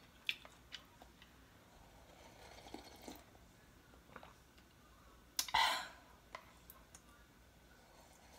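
Eating sounds from a cup of Korean instant ramen: scattered light clicks and taps, and one short, louder slurp of broth from the cup about five and a half seconds in.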